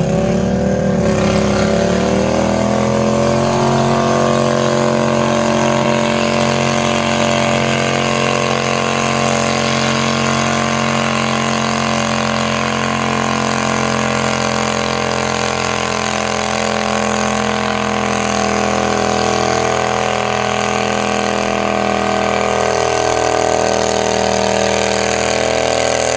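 Quarter-scale garden pulling tractor's small engine revving up over the first few seconds, then held at steady high revs while it pulls a weight-transfer sled.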